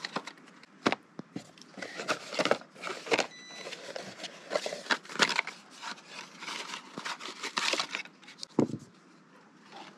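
Cardboard packaging and small plastic parts being handled: a busy run of rustles, scrapes and light clicks as small boxes are opened and pieces taken out, dying down for the last two seconds.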